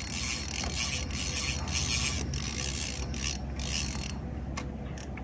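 Fishing reel's drag ticking rapidly and steadily as a hooked catfish runs and strips line off the reel: a big, strong fish pulling against the drag.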